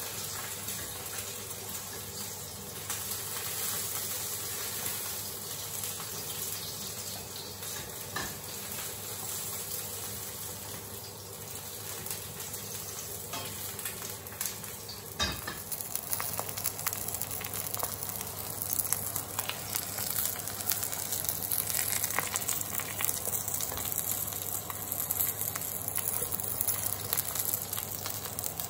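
Egg frying in hot oil in a nonstick pan: a steady sizzle, with crackling pops growing more frequent in the second half. A single sharp knock about halfway through.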